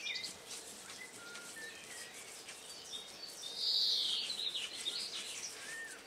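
Small birds singing: scattered short, high chirps and whistles, with one louder, scratchy call lasting about half a second around four seconds in.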